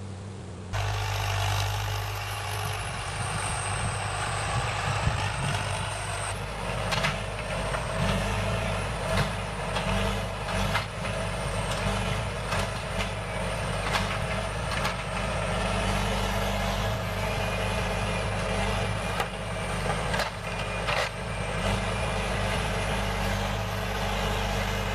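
Diesel engine of a forestry forwarder running under load with a steady drone, starting abruptly about a second in. Irregular clanks and knocks from the machine break through it.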